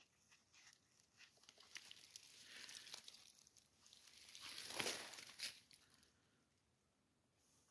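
Faint crackling rustle of dry fallen leaves and handling as a porcini mushroom is moved about in the leaf litter, with scattered small crackles and a louder rustle a little under five seconds in.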